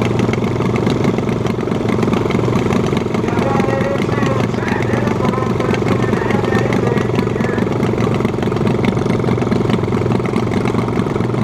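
Riding lawn mower engine running steadily at low speed, without revving.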